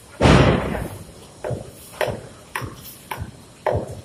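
Concrete hollow blocks knocking and clinking against each other as workers lift them out one by one. A heavy thud comes about a quarter second in, then sharp knocks roughly every half second.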